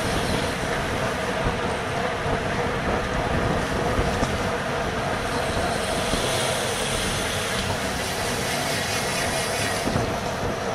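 Steady rush of wind on the microphone and tyre noise from a road bicycle riding at race speed, with a faint steady hum underneath.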